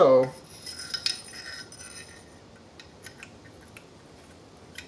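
Light metallic clinks and taps of AR-15 barrel and handguard parts being handled, with short high ringing, most of them in the first couple of seconds, then a few scattered small clicks.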